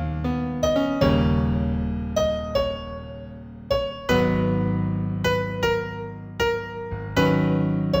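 Solo piano playing a slow new-age piece in F major: single melody notes ring out over held low chords that change a few times.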